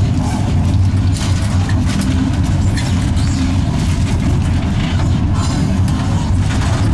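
LEW-built EL2 electric locomotive running slowly along the track, heard from its cab: a steady low hum and rumble, with irregular light rattles and clicks.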